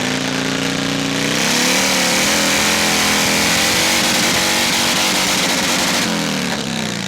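Motorcycle engine revved up and held at high revs for several seconds, then let back down near the end.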